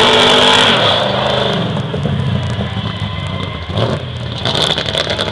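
Car doing a burnout: the engine is held at high revs while the tyres squeal loudly. It eases off about a second in, and the engine then runs on more quietly, with a few louder bursts near the end.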